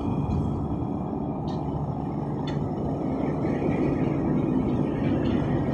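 A paramotor's engine running steadily at a distance in flight, heard as a faint drone over a steady low rumble. Two short clicks come about a second apart near the middle.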